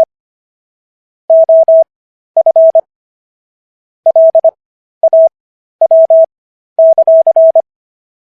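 Morse code sent as a single steady mid-pitched beep: dits and dahs keyed at 25 words-per-minute character speed, with Farnsworth spacing stretching the gaps for an overall 15 words per minute. Quick letter groups are separated by longer pauses between words.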